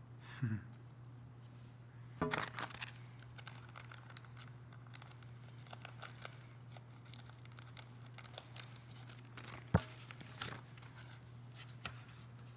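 Album packaging being handled, crinkled and torn open by hand, in a run of crackly rustles, with one sharp click about ten seconds in.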